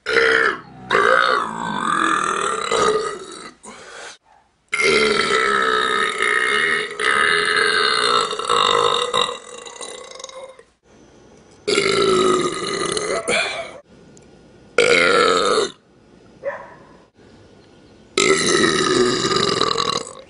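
A person belching repeatedly: a string of about seven loud, pitched burps with short gaps between, the longest one drawn out for about six seconds.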